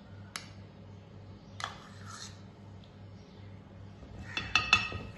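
Metal spoon clinking and scraping against china and ceramic bowls as butter is scooped onto flour, with a quick run of ringing taps near the end.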